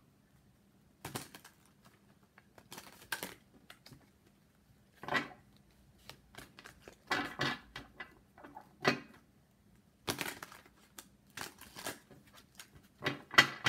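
A deck of oracle cards being shuffled by hand, the cards flicking and slapping together in a series of short, irregular bursts with gaps between.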